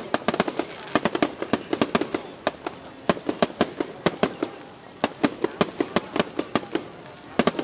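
Fireworks going off: a rapid, irregular series of sharp bangs and cracks, several a second, coming in clusters with short lulls between.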